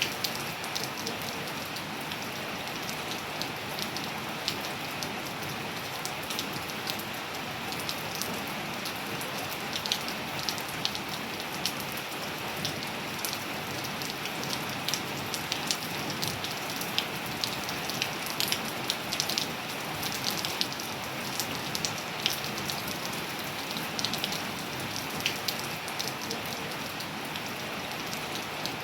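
Steady rain falling, an even hiss with many sharp, irregular drops tapping close by on a hard surface.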